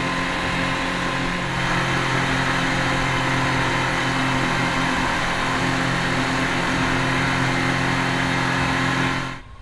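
Speedboat running at speed, its engines holding a steady drone over the rush of wake spray and water along the hull. The sound stops abruptly near the end.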